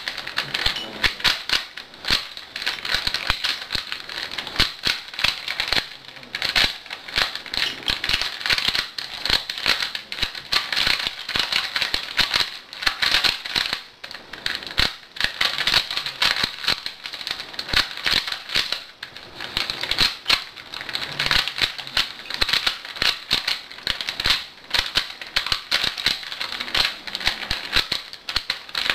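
Rubik's Cube layers being turned rapidly by hand during a speed solve: a fast, irregular stream of plastic clicking and clacking with brief pauses between bursts of turns.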